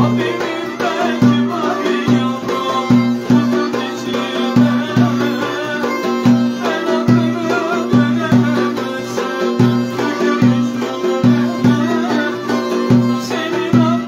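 Turkish folk dance tune (oyun havası) played live on violin and a cümbüş, a plucked lute with a round metal, skin-topped body, over a hand-beaten frame drum keeping a steady beat of low thumps.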